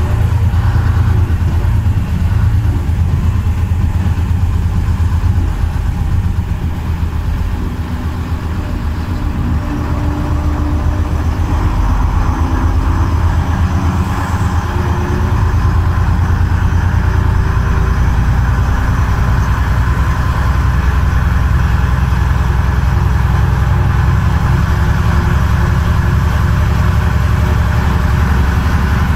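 Engine of a vintage heavy vehicle running as it drives along, a steady low hum that eases about eight seconds in and builds back to a steady, louder pull from about halfway.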